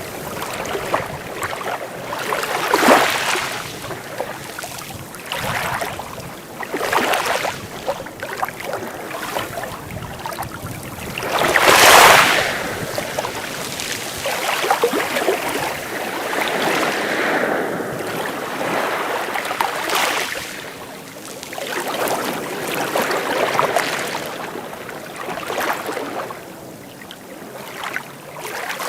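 Small sea waves breaking and washing up on a beach, one swell after another every few seconds, the biggest about twelve seconds in.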